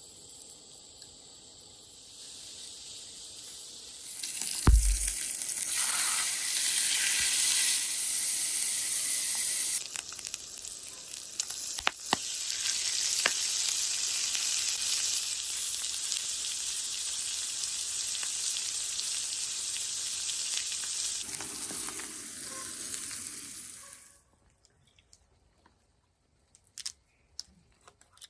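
Food sizzling as it fries in a hot pan. The sizzle swells up about four seconds in, with a dull thump, and runs steadily loud until it cuts off suddenly near the end. A few faint small clicks follow.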